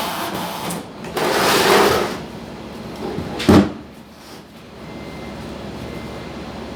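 Handling noise from opening the box of a gas nail gun: a scraping rustle about a second in, then a single sharp knock about three and a half seconds in.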